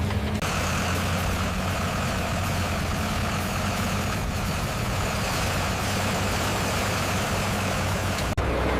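A heavy engine running steadily, like a truck idling. It starts abruptly about half a second in and cuts off sharply near the end.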